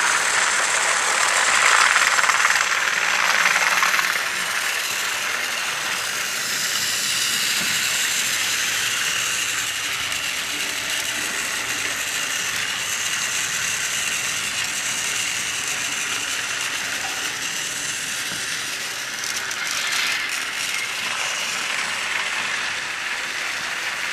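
Battery-powered Trackmaster toy trains (Stephen engines) running on plastic track: a steady whirring, rattling noise of small gear motors, a little louder in the first few seconds.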